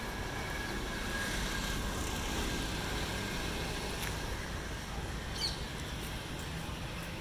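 Steady hum of city traffic, with a short high bird call about five seconds in.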